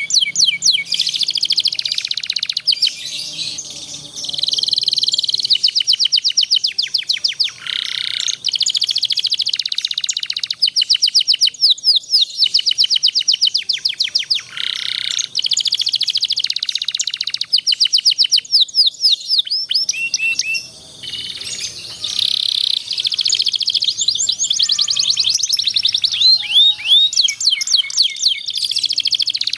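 Domestic canary singing a long, continuous song of fast rolling trills, many rapid notes strung together, broken by a few short whistled phrases and brief pauses.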